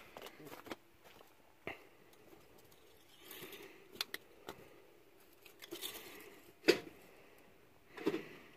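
Quiet handling noises: scattered rustling and a few sharp clicks and taps around the tractor. The loudest is a single sharp click about two-thirds of the way through.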